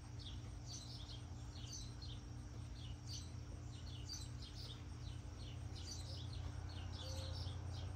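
Small birds chirping outdoors: many short, quick chirps repeating throughout, over a faint steady low hum.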